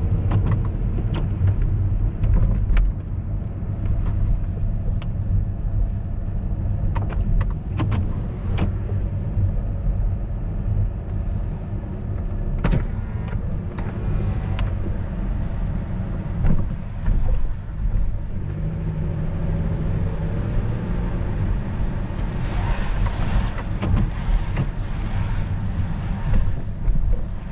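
Car driving on wet pavement, heard from inside the cabin: a steady low road rumble with scattered clicks, and a louder hiss for a few seconds near the end.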